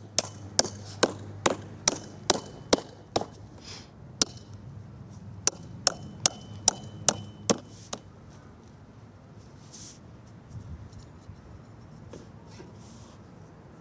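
Hammer driving edging fasteners through plastic landscape edging into the soil. There are two runs of sharp, even blows, about two or three a second: the first lasts about three seconds, and the second runs from about five and a half to eight seconds in. After that only faint scuffing is heard.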